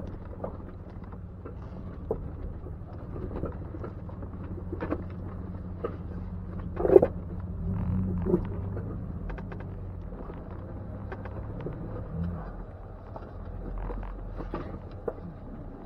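Jeep Wrangler engine running low and steady while crawling over a rocky trail, with scattered knocks and crunches of tyres and underbody on rock. A loud clunk comes about seven seconds in.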